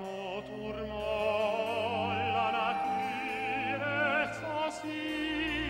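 French baroque opera: operatic singing with a wide vibrato over orchestral accompaniment.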